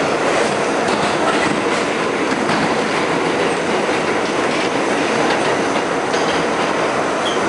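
R68 subway car running at speed, heard from inside the car: a steady, loud rumble and rush of wheels on rail, with faint irregular clicks of the wheels over rail joints.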